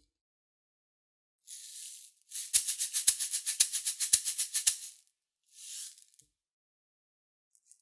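SONOR shaker played by hand: one short shake, then a steady rhythmic shaking pattern for about two and a half seconds with accented strokes about twice a second, and a last single shake.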